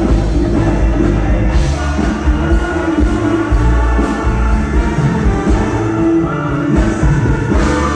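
Live Mexican banda music, loud: a brass section of trumpets and trombones with sousaphone over a heavy bass and drum beat, with a voice singing.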